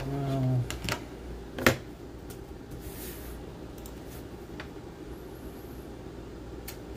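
A short low hum, then a few sharp clicks and knocks from objects being handled on a desk, the loudest about a second and a half in. A steady low room hum runs underneath.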